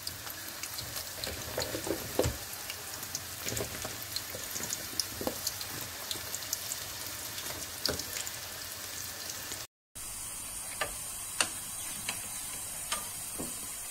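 Cubed eggplant frying in plenty of hot oil in a pot: a steady sizzle with scattered crackles and pops as more pieces are dropped in. The sound cuts out for a moment about ten seconds in, and the sizzle then goes on steadier, with fewer pops.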